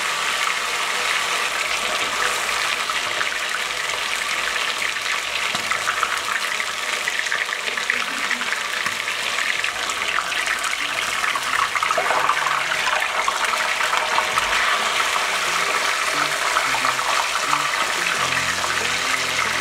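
Whole marinated chicken deep-frying in a wok of hot oil, sizzling and crackling steadily.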